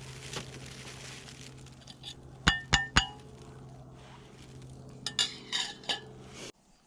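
Camp cookware clinking: three sharp, ringing metal clinks about a quarter second apart, then a few more near the end, over a steady low hum that cuts off suddenly.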